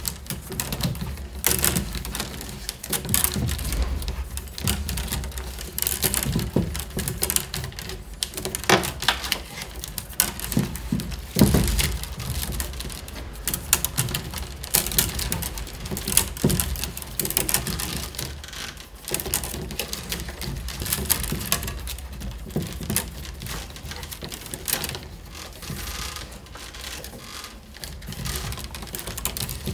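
Peeled willow wicker rods clicking, rustling and scraping against one another as they are woven by hand between the uprights of a basket wall: a dense, irregular run of small knocks and ticks.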